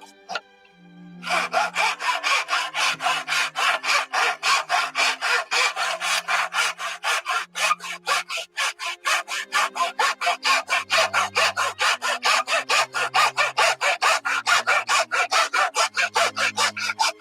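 Hand saw in a miter box cutting through a polymer pistol frame, with quick, even back-and-forth strokes, several a second. The sawing stops for about a second just after the start, then carries on steadily.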